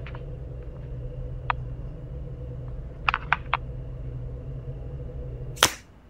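Steady low background hum with a few small clicks, as of a phone being handled. Near the end comes one brief, loud rush of noise, and then the hum drops away.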